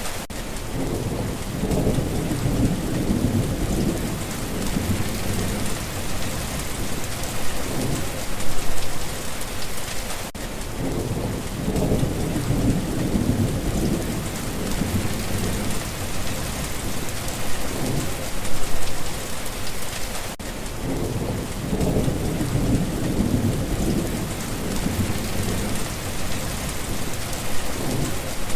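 Steady heavy rain hissing on surfaces, with a low rolling rumble of thunder about every ten seconds, three times, each lasting a few seconds.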